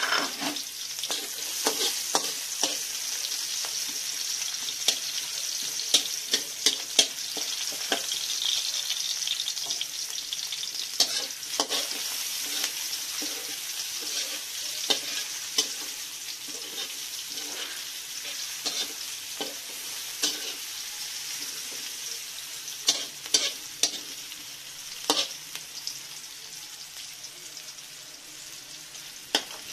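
Chopped garlic and onion sizzling in oil in a wok as they are sautéed, with a spatula scraping and tapping against the pan now and then. The sizzle eases somewhat toward the end.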